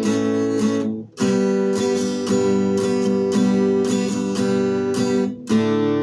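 Acoustic guitar strumming chords in a steady rhythm, without singing, with a brief break about a second in and again near the end.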